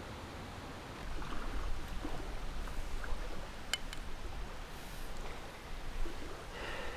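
Wind gusting on the microphone: a steady rushing noise with a low rumble that picks up about a second in, and one sharp click near the middle.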